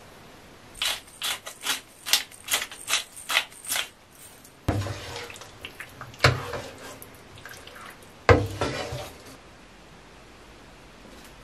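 Wooden spatula stirring saucy stir-fried pork in a wok: a run of quick scraping strokes, about three a second, then three heavier clunks of the spatula against the pan, each trailing into a scrape.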